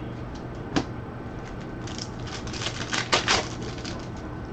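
Trading cards being handled and flipped through by hand. There is a single sharp click about three quarters of a second in, then a flurry of short clicks and slides between about two and three and a half seconds in.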